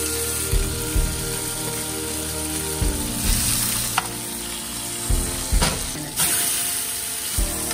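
Hogfish fillets sizzling in hot oil in a nonstick frying pan, with a steady hiss. Metal tongs and a spatula click and scrape against the pan several times as the fillets are moved and lifted.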